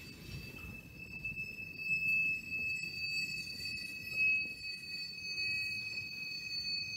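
Freight train cars (tank cars, then double-stack container well cars) rolling past, with a low rumble and a steady high-pitched wheel squeal. The squeal strengthens about two seconds in and is loudest around four seconds.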